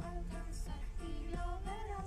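Music with a singing voice carrying a tune, over a steady low rumble.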